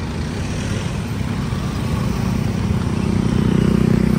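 Street traffic: cars and motorcycles passing close by. An engine's low hum grows louder through the second half as a vehicle draws near.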